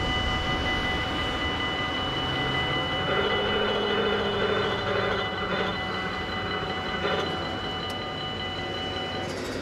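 Dutch level crossing bells ringing steadily while the barrier booms rise, with the barrier drives whining for a few seconds from about three seconds in; the bells cut off near the end as the crossing reopens. A low rumble runs underneath.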